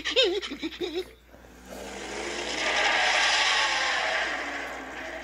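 Cartoon sound effect of a vehicle driving past: a rushing noise that swells to a peak and fades away, heard through a TV speaker.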